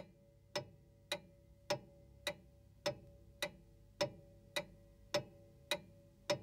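Steady, even ticking, a little under two ticks a second, over a faint steady tone.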